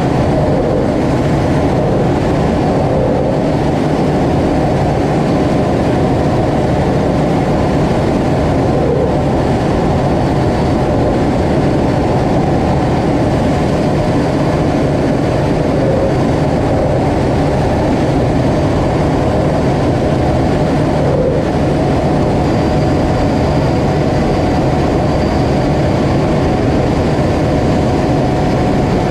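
Steady rumble of a Blue Angels F/A-18 jet heard from inside the cockpit in flight: engine and airflow noise, unchanging in level, with a faint high whine joining about two-thirds of the way through.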